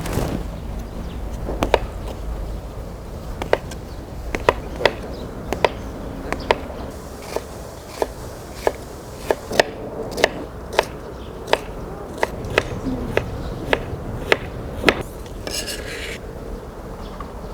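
Knife cutting on a cutting board: a long run of sharp, uneven knocks, about one to two a second.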